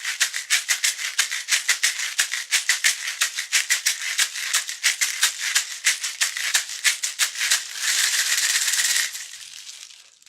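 A pair of homemade shakers, orange-juice cups taped shut with dry popcorn kernels inside, shaken together in a quick, steady rhythm. About eight seconds in, the strokes run together into a continuous rattling roll, which stops a second later.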